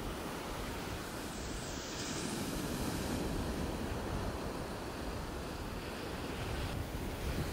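Steady rushing of wind on the microphone and sea water washing against the side of a small open boat.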